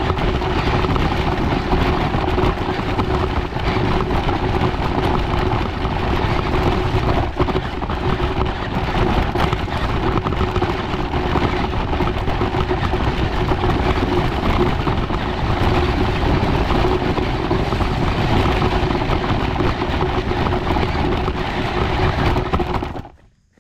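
Radio-controlled scale UTV driving over a dirt trail: its motor and gears run with a steady whine under a rough rumble, and the sound cuts off suddenly near the end as the car stops.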